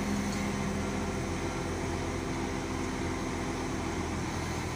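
Diesel engine of a Tadano 120-ton mobile crane running steadily as the crane lifts a bundle of steel rebar.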